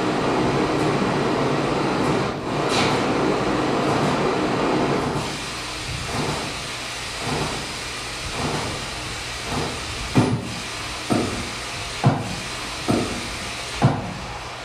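Original electronic sound score for a dance piece: a dense, steady rumbling noise that gives way about five seconds in to a run of short pulses, about one a second, growing sharper toward the end.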